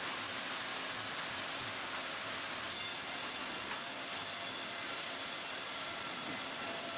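Steady sawmill machinery noise with a strong hiss. About three seconds in, a high, many-toned whine joins it.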